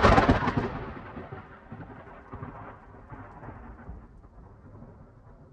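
A thunderclap: a loud crack at the very start, then a rumble that rolls on and slowly fades away over the next several seconds.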